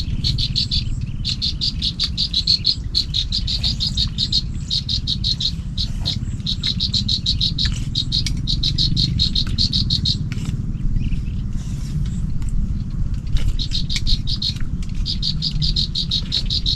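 Insects chirping in a rapid, high-pitched pulsing trill, in bursts of about a second with short breaks and a longer gap about two-thirds through, over a steady low rumble.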